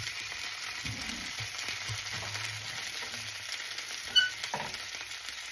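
Italian pork sausages sizzling steadily as they fry in a stainless steel skillet in a little leftover frying oil. One short metallic clink rings out about four seconds in.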